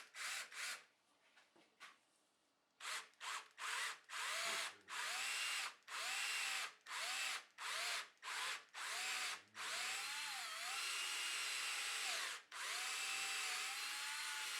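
Power drill boring holes into a plywood fence, run in many short trigger pulses, each whine rising as the motor spins up, then in longer steady runs that dip in pitch where the bit bites.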